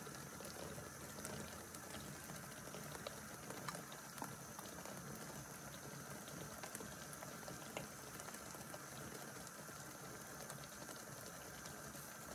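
Dye bath simmering in a stainless steel roasting tray on a gas hob: a faint, steady bubbling with small pops scattered through.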